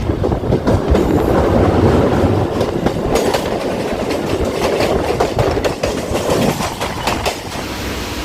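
Train running along the track, its wheels clattering with sharp clicks over the rail joints; the noise eases somewhat near the end.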